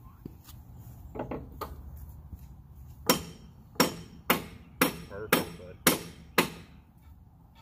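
A run of about eight sharp, ringing metal knocks, roughly two a second, as a log dog is set against the log on a Wood-Mizer LT10 sawmill bed. A few lighter knocks come first.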